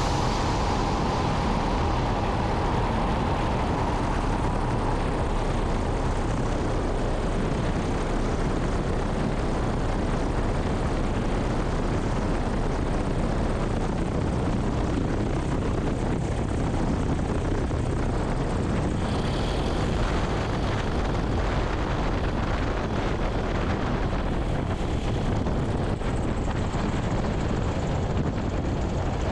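Ultralight aircraft's two-cylinder V-twin lawnmower-type engine turning the propeller through a reduction drive, heard close behind the engine, running steadily.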